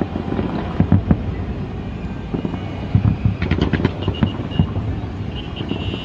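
Distant fireworks going off: a run of low booms and thuds, with a quick cluster of sharp cracks about three and a half seconds in, over wind rumble on the microphone. A thin high whistle sounds briefly around four seconds in and again near the end.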